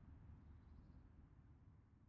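Near silence: a faint low rumble fading out.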